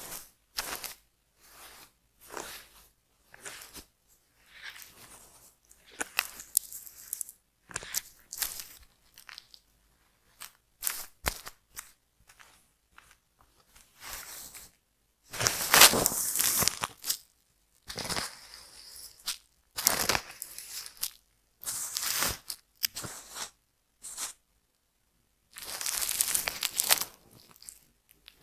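Scratching and scraping across a scalp through the hair to loosen and remove dandruff, in a series of irregular strokes with short silent gaps between them; the longest and loudest stretch comes about halfway through.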